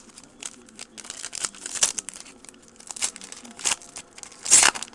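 A trading-card pack wrapper being handled and torn open: a run of short crinkles and crackles, with one louder rip near the end.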